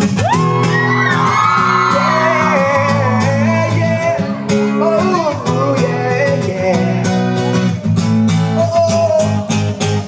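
Acoustic guitar strummed in a steady rhythm. A long, high vocal shout rises right at the start and wavers over the guitar for the first few seconds.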